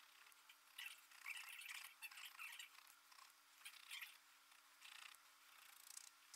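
Faint scratching of a pen nib on paper in short, irregular strokes, over a low steady hum.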